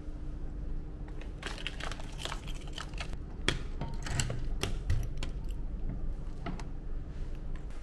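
Keys jangling and a key being worked in a door's deadbolt lock: a run of small metallic clicks and rattles starting about a second and a half in, with two sharper clacks near the middle, over a low steady hum.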